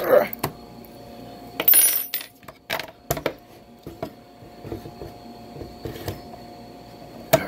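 A plunge saw being handled and worked on its guide track: a run of sharp plastic and metal clicks and knocks, with a short scraping rattle about two seconds in and a louder knock near the end.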